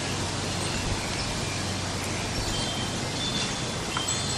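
Steady wind blowing outdoors, rustling through grass and leaves and rumbling on the microphone. A few faint high notes come through near the end.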